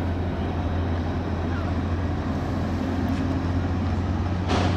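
Steady low engine drone with a constant hum under it, and a single short knock near the end.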